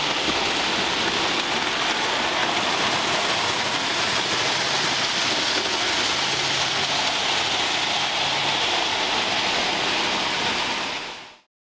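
A steady, even hiss with a faint low hum from a model train's motor as it passes about six seconds in. The sound cuts off abruptly near the end.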